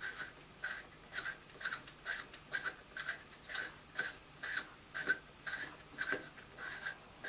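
End fitting on the rod of a 12 V, 50 mm-stroke linear actuator being unscrewed by hand: a short rasping scrape with each twist of the fingers, about two a second and evenly repeated.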